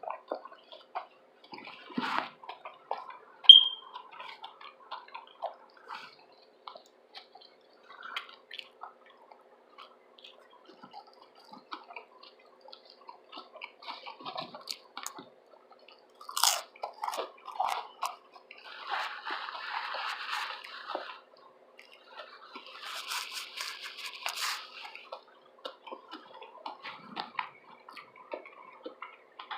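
Close-miked chewing of a loaded tuna and veggie sub sandwich: wet mouth clicks and smacks throughout. There is a sharp crunchy bite about sixteen seconds in, and two longer, denser stretches of crunching a few seconds later. A brief, loud, high-pitched squeak about three and a half seconds in is the loudest sound.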